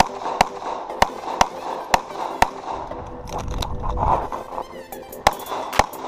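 Pistol shots from a CZ 75 TS Czechmate competition pistol, fired in quick pairs about half a second apart: three pairs in the first two and a half seconds, a pause of nearly three seconds, then more shots near the end.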